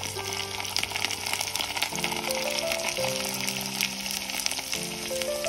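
Potato strips deep-frying in a small pot of hot oil: a steady sizzle full of quick crackles. Background music with a simple stepped melody plays over it.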